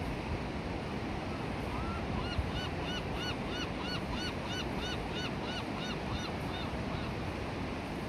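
A gull giving a long series of repeated, arched calls, about three a second. The calls start about two seconds in and stop near the end. Steady surf rushes underneath.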